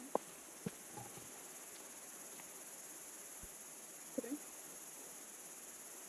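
Faint, steady high-pitched insect drone, which the hiker takes for a cicada. A few soft clicks come near the start, and a brief small sound about four seconds in.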